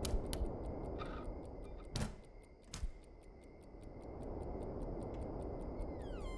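Steady ticking, like a clock, over a low rumbling room drone, with a few sharp knocks. Near the end a falling eerie tone slides in.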